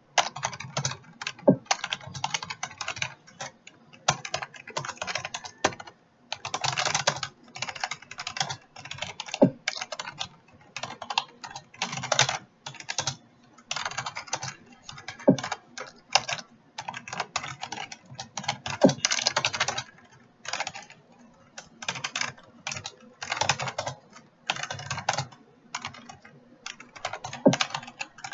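Computer keyboard typed fast in runs of rapid key clicks, broken by short pauses every second or two.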